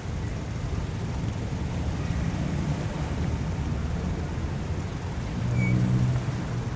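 Busy city street traffic: a steady rumble of engines and tyres. About five seconds in, one vehicle's engine swells louder for about a second before falling back into the general traffic.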